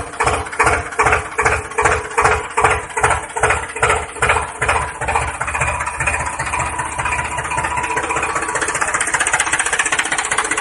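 Tractor engine chugging in an even beat of about three pulses a second, then speeding up into a fast, steady run about halfway through.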